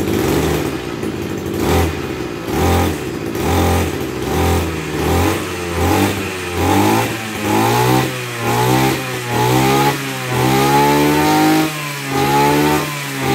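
Maruyama MKF330 brush cutter's 33cc two-stroke engine revved again and again on the throttle: short quick blips at first, then from about halfway longer revs that climb, hold and drop back to idle roughly once a second.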